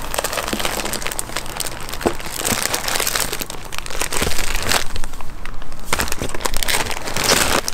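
Clear plastic bags of dehydrated backpacking meals crinkling and rustling as hands handle them in a cardboard box, with scattered sharp clicks and taps.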